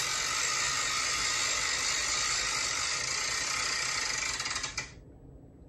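BeanBoozled plastic spinner wheel spinning, its pointer ratcheting in a fast, even run of clicks that cuts off suddenly near the end as the wheel stops.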